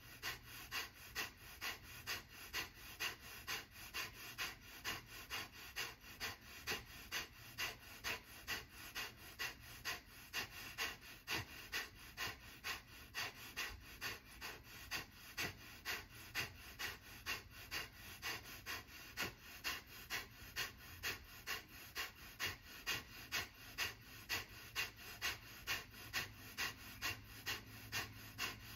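Kapalbhati breathing: a steady rhythm of short, forceful exhalations puffed out through the nose, about two a second.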